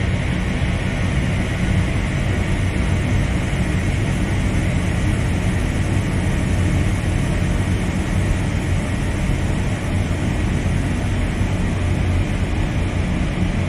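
Dark ambient drone music: a dense, steady low drone under a thick, even wash of noise, with no beat and no breaks.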